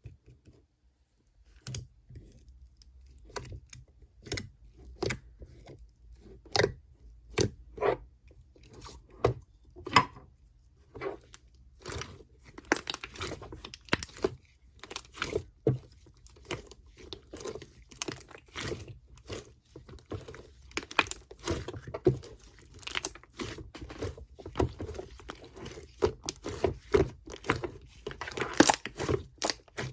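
Sherbet slime squeezed and poked by hand, giving irregular crunchy crackles and pops. The crackles come a few at a time at first and grow denser about halfway through.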